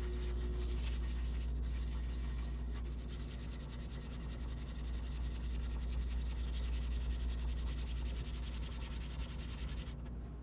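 Steel Landis leather-splitter blade being rubbed on sandpaper to flatten and sharpen its edge: a steady scratchy rasp that stops near the end, over a low steady hum.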